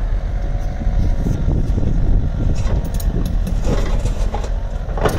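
Komatsu PC138US-11 hydraulic excavator's diesel engine running steadily while the boom and arm move, with a faint steady whine and a few metallic clanks, the loudest just before the end.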